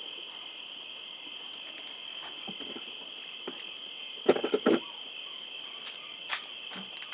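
Crickets chirping in a steady, unbroken high trill. A short cluster of clicks and knocks, the loudest sound, comes a little past halfway, and a single click follows near the end.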